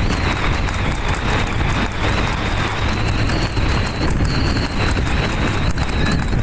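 Steady rushing wind and road noise around harness horses trotting with their sulkies, with the hoofbeats and wheel noise faint beneath it.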